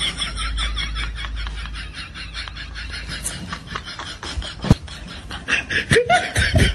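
A crowd of children laughing and giggling in quick, repeated bursts.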